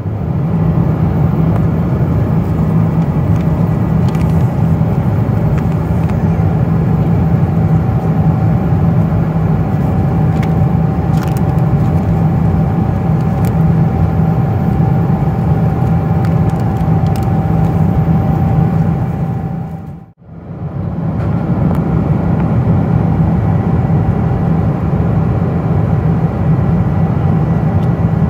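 Steady in-flight cabin noise of a Boeing 777-200: engine and airflow noise, heavy in the low end with a faint steady hum above it. A few faint crinkles of plastic wrappers being handled, and the sound drops out for a moment about 20 seconds in.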